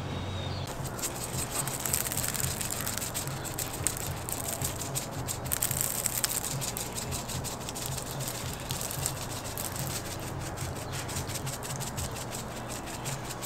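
Dry spice rub shaken from a plastic shaker bottle in quick, rattling shakes onto a raw whole pig, over a steady low hum.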